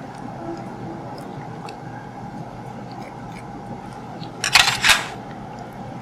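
Dissecting scissors cutting through a pig heart's aorta: a few faint ticks of the blades, then two quick loud snips about four and a half seconds in, over a steady faint hum.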